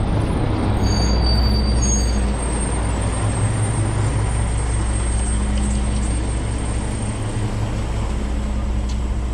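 Street traffic with a steady low engine drone from a large vehicle nearby, over road noise.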